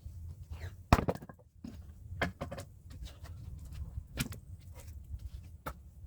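An axe striking firewood logs: one sharp crack about a second in, then several lighter knocks, with the audio sped up to double speed.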